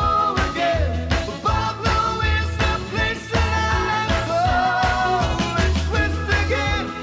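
Background music: an upbeat rock-style song with a singing voice over a steady beat of bass and drums.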